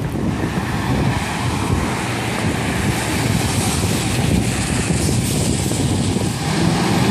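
Fire engine's diesel engine running steadily and loud as the truck pulls out of the station bay.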